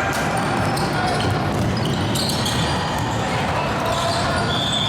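Basketball game sound in a gym: a ball bouncing on the court amid voices. Near the end a steady high tone sets in and holds.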